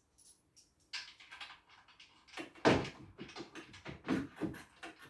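Metal knocks and clatter from suspension parts and hand tools being handled, with the loudest knock just under three seconds in and smaller clicks between.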